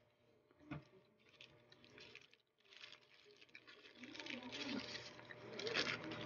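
Paper burger wrapper rustling and crinkling as it is folded back and handled, growing louder about four seconds in, after a single sharp tap under a second in.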